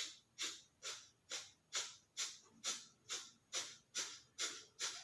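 Rapid, forceful exhalations through the right nostril with the left nostril held shut, a steady run of short hissing puffs a little over two a second: the Virechan Gati yogic cleansing breath.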